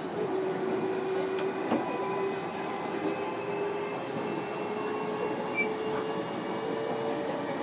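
Onboard running sound of a 305 series electric train, recorded in a motor car. The traction motors whine steadily and rise slowly in pitch as the train gathers speed, over continuous wheel-on-rail noise with a few short clicks.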